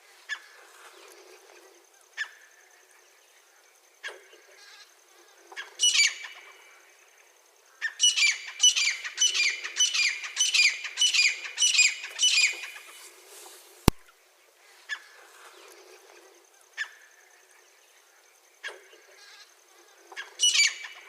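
Francolin (teetar) calling: single sharp call notes every couple of seconds, then a fast run of about ten ringing calls, roughly two a second, in the middle. A faint steady high thin tone runs underneath, and there is one sharp click just after the run.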